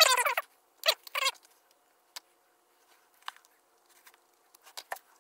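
A few short high squeaks in the first second or so, then scattered light clicks and taps of small metal parts as a Mikuni carburettor is put back together by hand.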